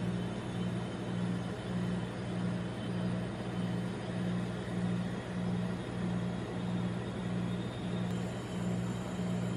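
Rolled-ice-cream machine's cold plate with its refrigeration compressor humming steadily, a low throb pulsing about twice a second.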